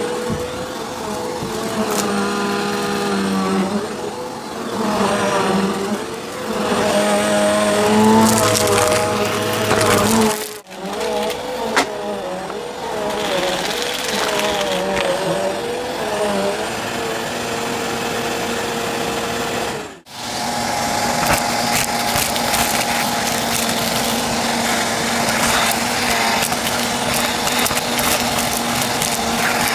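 Bissell CleanView upright vacuum cleaner running, its motor pitch wavering up and down as the suction load changes. The sound cuts out briefly twice between clips. In the last part it becomes a steadier hum with a dense crackle of debris going up the hose.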